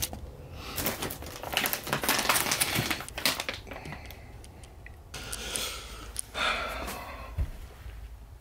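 Clutter being handled and moved about in a small room: a quick run of clicks, scrapes and rattles, then a couple of seconds of rustling and a dull thump near the end.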